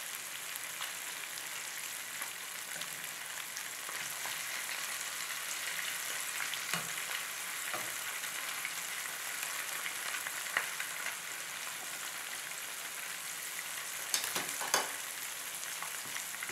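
Flour-dredged smelt frying in hot oil in a pan: a steady sizzle and crackle, with a few sharper pops and clicks around the middle and near the end.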